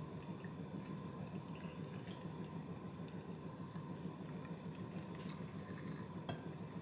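Cooled soy-sauce brine poured into a glass jar of peeled boiled eggs: faint trickling and small drips, with a light click near the end.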